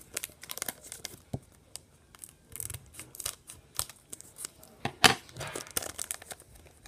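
Foil trading-card booster pack crinkling in the hands and being torn open, with scattered crackles and one sharp, louder rip about five seconds in.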